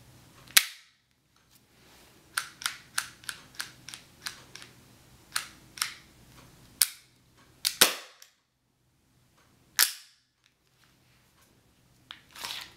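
Px4-style gas blowback airsoft pistol shooting, a series of sharp clacks. There is one loud shot near the start, then a quick string of about eight quieter ones at roughly four a second, then scattered loud shots; a couple near the end trail a brief hiss.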